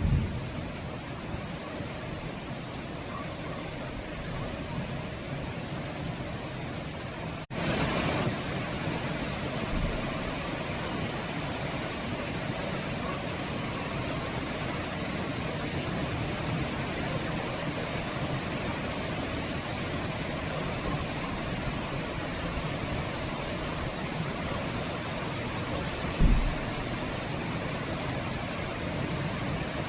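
Steady rain, an even hiss with no pitch. About seven and a half seconds in it breaks off for an instant and comes back a little louder, and near the end there is a brief low thump.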